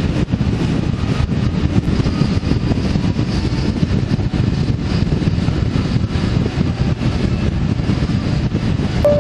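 Steady rumble of a vehicle on the move, with wind and road noise and no distinct engine note.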